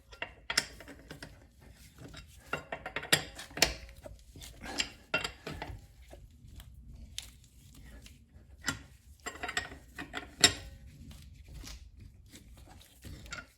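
Lug wrench and socket working the wheel's lug nuts loose: irregular, sharp metallic clinks and knocks.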